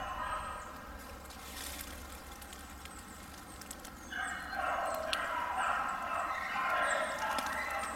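A pack of beagles baying on a rabbit's trail, several voices overlapping. The bays fade during the first few seconds, then come back strongly from about four seconds in.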